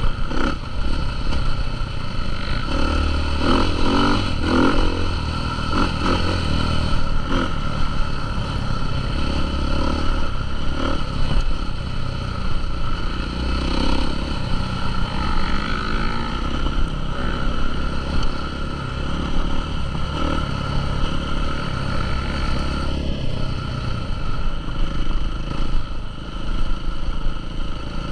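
Motocross motorcycle engines running and revving continuously, rising and falling in pitch as bikes ride the track.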